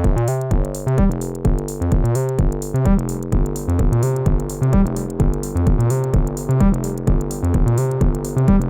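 Twisted Electrons Acid8 MKII 8-bit acid synth playing a fast sequenced acid bassline over a drum machine beat, with a steady kick about twice a second.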